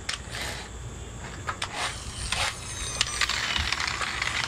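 Small plastic toy trucks being handled, giving a series of light clicks and knocks with brief scuffs and rustling, busier near the end.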